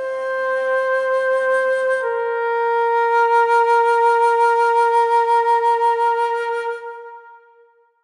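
Background music: a flute-like wind instrument playing slow, held notes, moving to one long note about two seconds in that fades out near the end.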